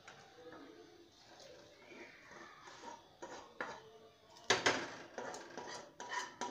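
Spoon scraping and clattering against a cooking pan as curry is dished out into a bowl: low scraping at first, then a quick run of loud knocks and scrapes from about four and a half seconds in.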